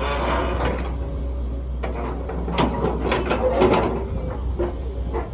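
Excavator's diesel engine running steadily, with irregular creaking and clanking from the arm and bucket at work, busiest and loudest from about two and a half to four seconds in.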